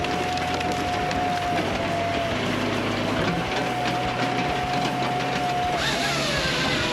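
Log splitter running, a steady mechanical din with a whining tone that dips in pitch briefly twice.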